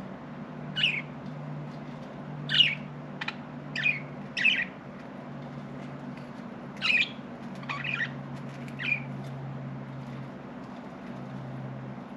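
Budgerigars chirping: about seven short, separate calls at irregular intervals, over a steady low hum.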